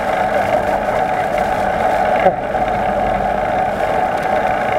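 Steady riding noise from a bicycle under way at night: a continuous buzzing whirr with wind and road noise.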